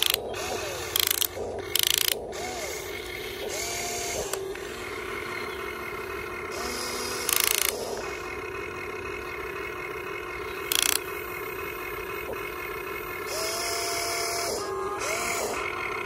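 Huina 1550 RC excavator's electric motors and gears whining as the boom, arm and bucket dig and lift a load of dirt, the pitch rising and falling as each motion starts and stops. A few short, loud bursts of noise cut in, about five times.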